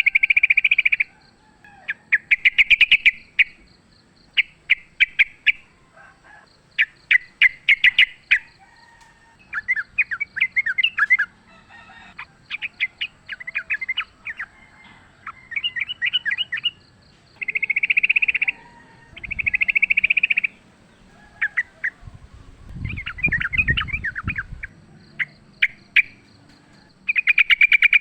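Yellow-vented bulbuls (trucukan) calling in repeated bursts of rapid, bubbly chattering phrases, one after another with short gaps. A brief low rumble comes in near the end.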